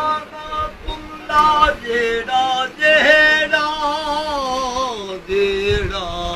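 A man's voice chanting a devotional call to Ali in drawn-out, wavering sung notes. A long phrase starting about three seconds in slides slowly downward.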